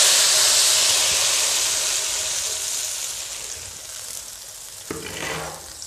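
Blended wet chili paste sizzling in hot oil in a wok just after being poured in, loud at first and fading steadily over about four seconds. A short knock about five seconds in.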